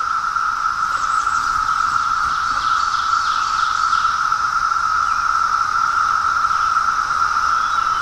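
Chorus of Brood X periodical (17-year) cicadas: masses of males calling together to attract females, merging into one steady, unbroken drone on a single pitch.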